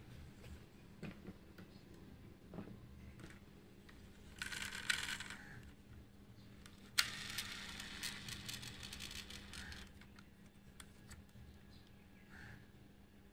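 Hands handling a diecast model car, with small clicks and taps from its metal and plastic parts. There is a short scraping rattle about four and a half seconds in. A longer, dense clicking rattle starts sharply about seven seconds in and lasts some three seconds.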